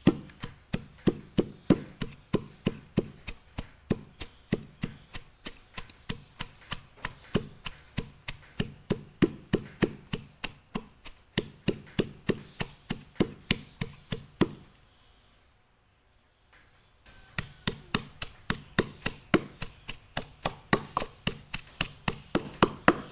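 Wooden pestle pounding lemongrass, chili, shallot and garlic in a clay mortar, about three steady strikes a second. The pounding stops for a couple of seconds past the middle, then starts again.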